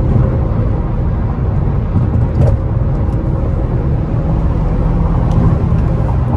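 Infiniti Q50's twin-turbo V6 and tyres making a steady drone while the car is driven, heard from inside the car.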